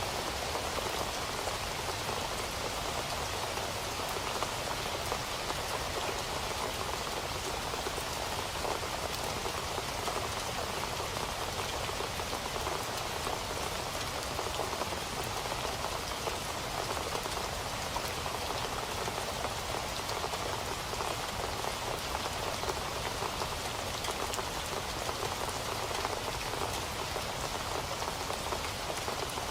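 Steady rain falling, an even hiss of drops with faint scattered ticks of single drops striking.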